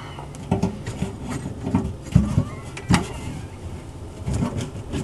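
Irregular metal knocks, clanks and scraping as an old kitchen sink strainer basket assembly is worked loose and pulled apart, with several sharp knocks spread through.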